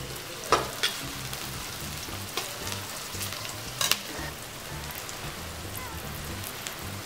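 Chopped onions, ginger, garlic, curry leaves and green chillies sizzling steadily in hot coconut oil in a metal kadai. A metal spatula stirs through them, knocking and scraping against the pan in a few sharp clicks during the first four seconds.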